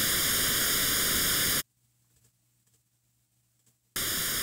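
Noise test signal from a Korg Kronos, mixed 50-50 with a copy delayed by 0.6 ms. The result is a comb-filtered hiss with a notch around 800 Hz and further notches evenly spaced above it. The hiss cuts off about a second and a half in and starts again after about two seconds of near silence.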